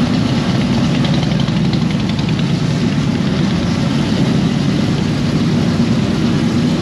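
Car engines running, a steady low rumble.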